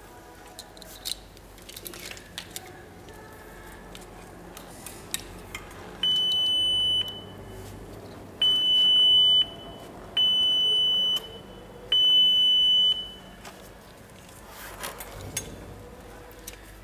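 Electronic beeper sounding four times, each a steady high-pitched beep about a second long, in the middle of faint clicks and rustling of wiring being handled.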